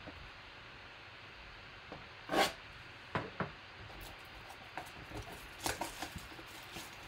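A cardboard trading-card hobby box being opened with a knife and handled by hand: a short scraping noise about two and a half seconds in, then scattered light clicks and rustles as the box is turned over.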